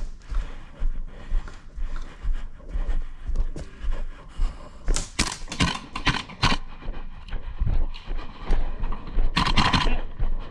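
Footsteps and gear rustling of an airsoft player moving on foot, in a steady thudding rhythm. About five seconds in comes a quick run of sharp cracks, and a short burst of noise follows near the end.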